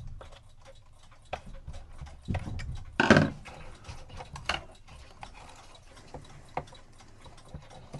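Small irregular clicks, taps and scrapes of tools and parts being handled while a cuckoo clock is taken apart, with a louder knock and scrape about three seconds in.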